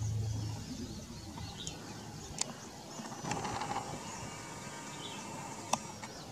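Background birds chirping with small repeated high notes over an outdoor noise bed. A low hum sounds briefly at the start, and two sharp clicks stand out, the second near the end.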